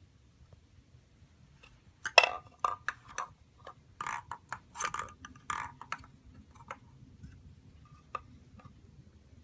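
Quick, irregular wooden taps and knocks on a Montessori object permanence box as a baby handles the tray and ball, clustered over about four seconds, then a single click near the end.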